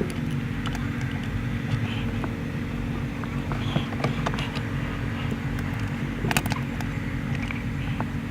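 Steady low mechanical hum, with scattered light clicks and knocks, a cluster of them about six seconds in.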